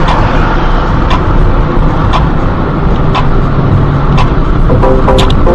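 Steady, loud engine and road noise inside a moving car's cabin, with a faint tick about once a second.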